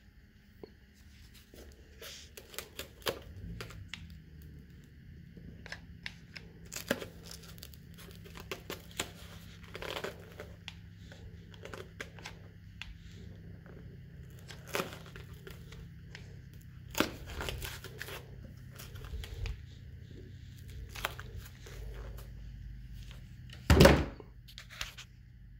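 Foam tubing being pressed and hot-glued around the cut edge of a rubber tire: scattered crinkling, tearing and clicking handling noises, over a faint steady low hum, with one loud knock near the end.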